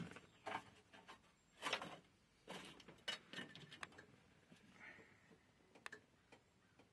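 Faint, scattered clicks and rubs of small parts being handled at a car's steel dash speaker opening, as a speaker-grille fastener is worked out.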